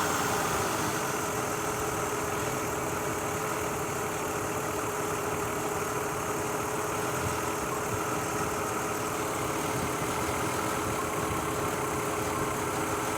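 A 2003 Mazda Tribute's 3.0 L V6 idles with a misfire, settling from a higher rev to a steady idle in the first second. The owner blames the misfire on ignition coils arcing where oil from leaking valve covers gets into the spark plug wells.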